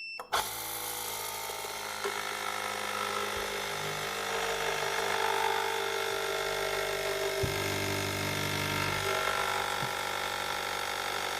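Phone-screen bubble remover machine starting with a click and then running steadily and pretty loud as it works on a laminated screen to press out bubbles.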